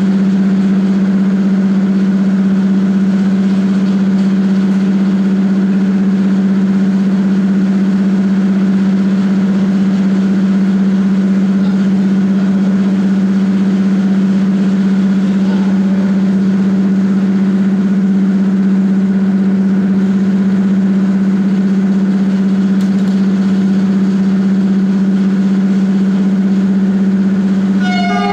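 Air compressor of a Romanian Class 40 (EA) electric locomotive running, a loud, steady drone with a strong low hum. Near the end a brief ringing tone sounds over it.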